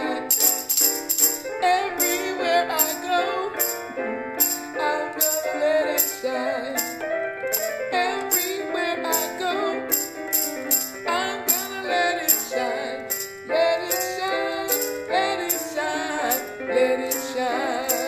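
Music: a small electronic keyboard playing chords and a tune, with a hand tambourine shaken in a steady rhythm. A woman's voice joins in at times.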